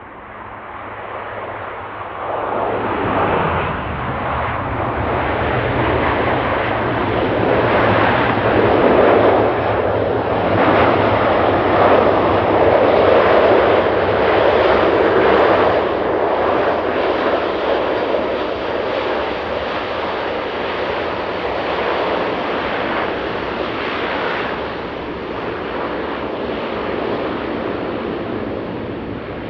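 De Havilland Canada Dash 8-400 turboprop airliner flying past close by: its engine and propeller noise swells to a peak about ten seconds in, then slowly fades. A tone slides down in pitch a few seconds in, over steady low droning tones.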